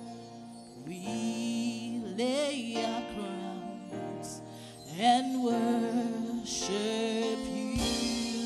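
Slow gospel worship music: a woman's voice sings drawn-out, wavering phrases over sustained keyboard chords.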